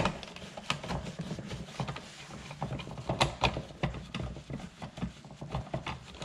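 Hands handling small fasteners at a plastic car grille: many quick, irregular clicks and light rattles of screws and clips against hard plastic, over a low handling rumble.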